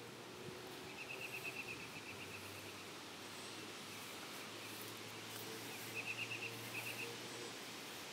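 Bees buzzing faintly over a field of flowering milkweed, heard as a low hum against a steady outdoor hiss. Twice, a rapid high trill of quick pulses cuts in for about a second.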